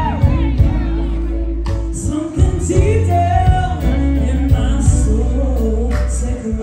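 Live band music: a woman sings lead into a microphone, holding long notes, over electric guitar and the rest of the band.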